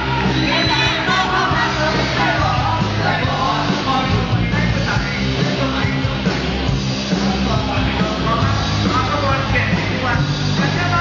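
Live band playing a Thai pop-folk song with a singer, loud and steady with a driving beat.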